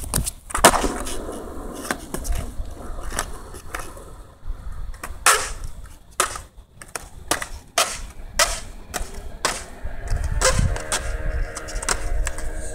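Skateboard on a concrete skatepark: the board is slapped down onto the concrete about half a second in, then its wheels roll with a low rumble, broken by a series of sharp clacks from the deck and tail striking the ground.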